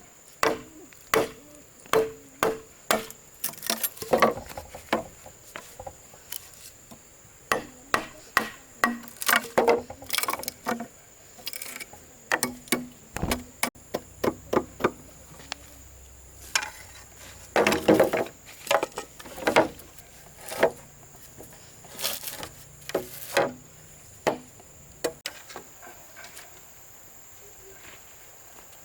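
Repeated sharp knocks of a tool striking wood, irregular and one to three a second, thinning out near the end, over a steady high drone of insects.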